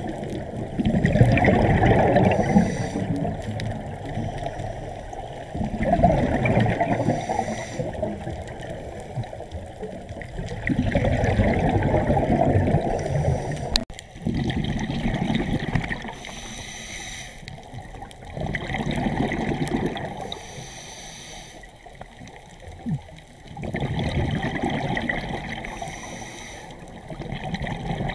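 Water sloshing and gurgling, swelling and fading about every four to five seconds.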